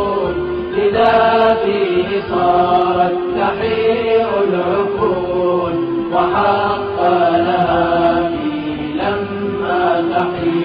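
Arabic devotional nasheed in praise of Imam Ali: a chanted vocal melody of drawn-out held notes that step up and down.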